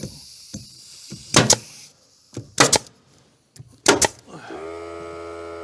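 A staple gun fires three times, about a second apart, fastening a wooden batten strip. Near the end a motor starts with a short rise and settles into a steady hum.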